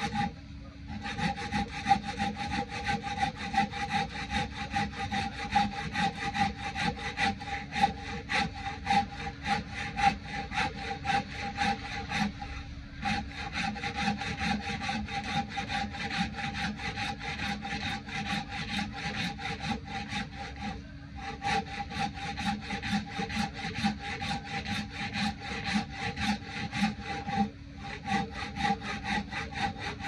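Samurai hand saw with coarse teeth cutting through a bark-covered log in quick, steady back-and-forth strokes, pausing briefly a few times.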